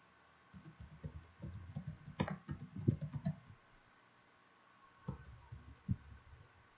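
Typing on a computer keyboard: a quick run of keystrokes lasting about three seconds, then two single clicks a little later.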